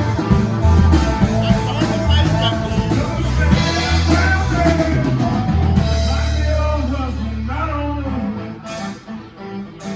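Rock music with drum kit, bass, guitar and singing; the bass and the overall level drop away about eight seconds in.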